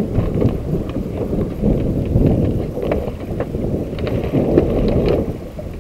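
Wind rumbling on the microphone and water slapping against a small boat's hull, with scattered light knocks and clicks.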